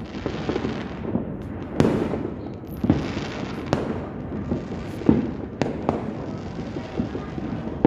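Aerial fireworks bursting: about half a dozen sharp bangs at irregular intervals, over a continuous background of overlapping pops and rumble from many fireworks going off.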